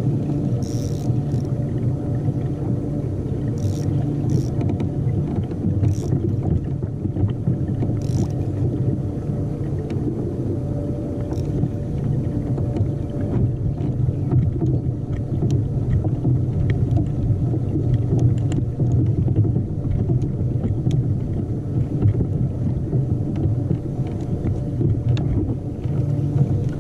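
Steady low rumble of water and hull noise on a kayak, with a faint hum running through it and a few brief high ticks in the first ten seconds.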